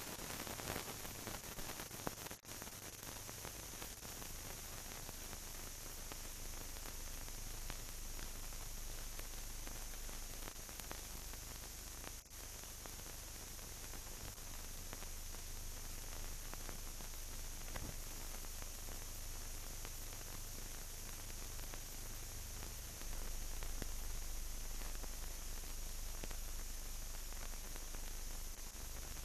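Steady hiss of a silent film transfer with a faint low hum and a few faint clicks; the hiss drops out for an instant twice, a couple of seconds in and again near the middle.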